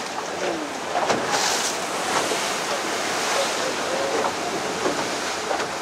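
Ocean surf breaking and washing against the base of rocky sea cliffs: a steady rushing of water, with wind on the microphone.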